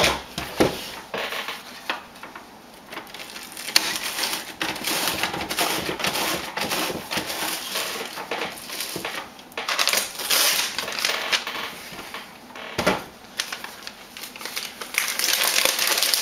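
Xyron sticker maker running a strip of patterned paper through by hand to coat it with adhesive: an uneven crackling and clicking of the mechanism and its plastic film. The crackle swells about ten seconds in and again near the end as the sticky-backed strip comes out and is handled.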